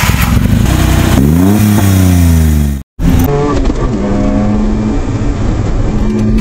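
Suzuki Carry DA63T kei truck's 660 cc three-cylinder engine running steadily, then revving up in a smooth rising sweep that cuts off abruptly about three seconds in. After that it runs under way, heard from inside the cab, its pitch shifting as it accelerates.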